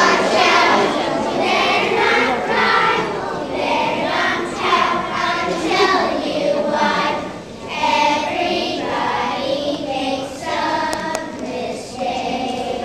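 A choir of young schoolchildren singing a song together.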